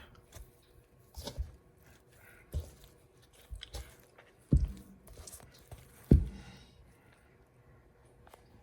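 Bread dough being kneaded by hand on a work surface: soft squishing with a few irregular low thumps, the two loudest about four and a half and six seconds in.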